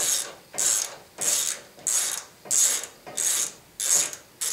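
Socket ratchet wrench clicking in short runs, a little under two runs a second, as a bolt is turned in by hand with back-and-forth strokes.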